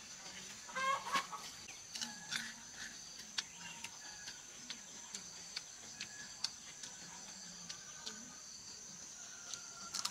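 Chickens clucking now and then over a steady high-pitched hum, with scattered short clicks.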